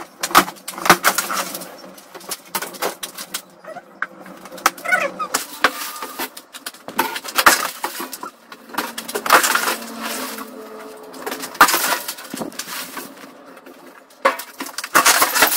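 Old ceiling sheeting and boards being pushed up, prised off and knocked down: repeated sharp cracks, knocks and crunching of breaking material and falling debris. Birds chirp now and then.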